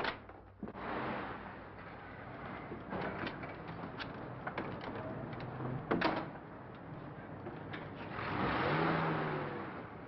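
A door bangs shut, then a car engine runs under scattered clicks and knocks. A car door slams about six seconds in, and near the end the engine revs up, swells and falls away as the car pulls off.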